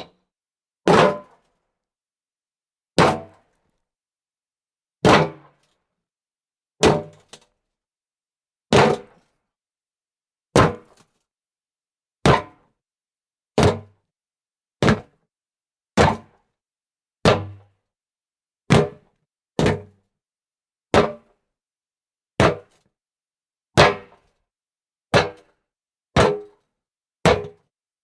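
Feet landing from jumps on hollow wooden boards: a series of separate dull thuds, one every second or two, coming a little faster toward the end.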